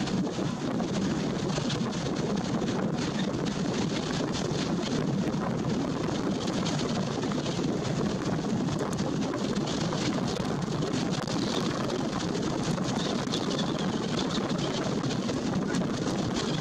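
Steady rushing noise of strong storm wind on the microphone.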